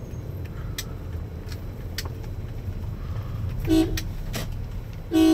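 Two short car-horn toots, the second louder, over the steady low hum of engine and road noise inside a moving car.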